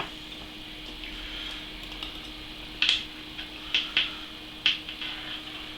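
Small metal clicks and clinks, about five or six spread over the second half, from an Allen key and the small screws as the four screws are taken out of the bottom of an EK-Supremacy EVO water block.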